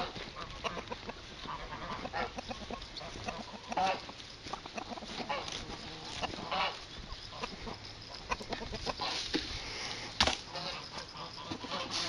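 Chickens clucking, with many short calls scattered throughout, and a single sharp knock about ten seconds in.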